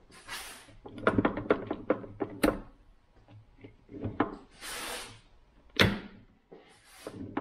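Open Subaru 5-speed manual gearbox worked by hand: metal clicks and clacks from its gears, shift forks and synchro sleeves as it is pushed into second gear and the shafts are turned. The loudest clacks come about two and a half seconds in and near six seconds, with a few short hiss-like rushes in between.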